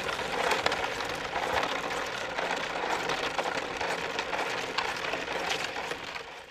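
Plastic sled dragged on a rope over wet, slushy asphalt: a continuous gritty scrape full of small clicks, fading out near the end.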